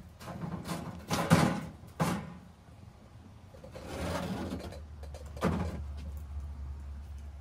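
A few knocks and bumps of something being handled, the loudest a sharp knock about a second in, with a softer scraping stretch in the middle; a low steady hum comes in about halfway.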